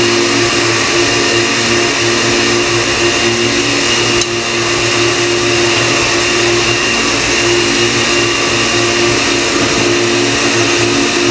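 Electric kitchen blender running steadily at full speed, blending coconut with spring water into coconut milk; a steady motor hum under a loud whirring noise, with one brief click about four seconds in.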